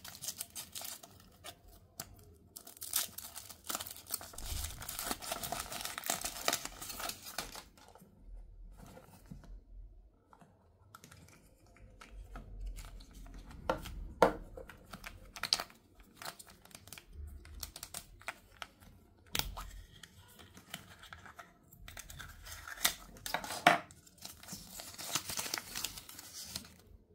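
Toy packaging being handled and opened: wrappers tearing and crinkling, with scattered sharp clicks and snaps of plastic. The longest spells of tearing and rustling come a few seconds in and again near the end, with quieter handling between.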